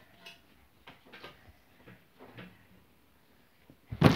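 A few faint soft knocks and rustles, then a single loud thump near the end.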